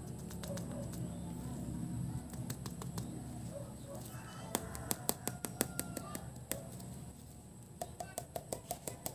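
Sharp clicks and scratches, several a second, start about halfway through as gloved fingers pick and tear at the end of a red cardboard firecracker tube. Before that there is only a low murmur.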